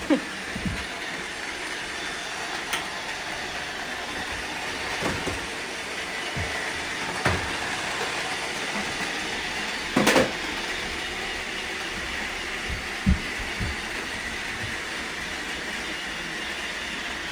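Robot vacuum cleaners running: a steady whir of motors and brushes, broken by several short knocks and clatters as they bump into things, the loudest about ten seconds in.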